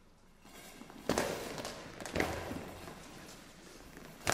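Goalball in play: the bell-filled ball jingling as it is thrown and rolls across the court, with two heavy thuds about one and two seconds in, from the ball bouncing and defenders diving onto the floor.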